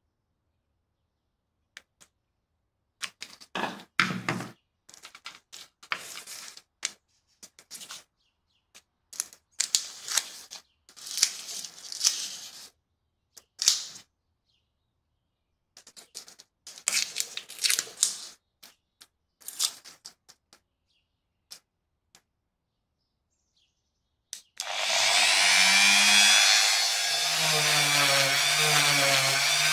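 Tape pulled off its roll and handled in scattered short bursts of peeling and rustling. About 25 seconds in, a rotary tool fitted with a brass wire cup brush is switched on and runs with a steady whine that wavers slightly in pitch; this is the loudest sound.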